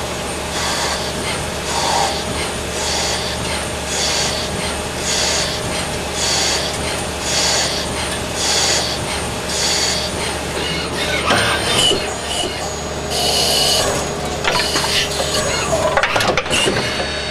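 Miyano BNA-42MSY CNC lathe threading on both spindles at once, with a cutting hiss that repeats about once a second as the tools make successive threading passes over the machine's steady hum. In the last few seconds the rhythm breaks into irregular hisses and clicks.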